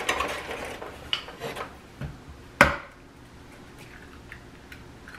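An egg being cracked: light clicks of handling the egg carton and plastic cup, then one sharp knock about two and a half seconds in as the shell is struck on a rim, followed by quiet handling.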